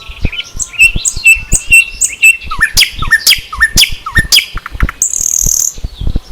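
Songbirds chirping and calling: rapid repeated chirps and whistled notes, with a run of short downward-slurred notes in the middle and a brief high buzzing trill about five seconds in. Low thumps sound throughout.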